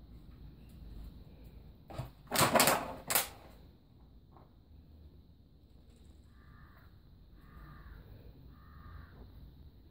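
Plastic treat bottle on a string being batted by a husky: three loud crackling clatters of plastic, the longest in the middle, between about two and three seconds in.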